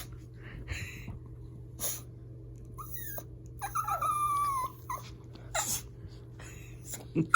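A dog whining and whimpering in odd short high glides, with one longer, slightly falling whine about four seconds in and short breathy puffs between. These are a hungry dog's impatient noises, begging for its food.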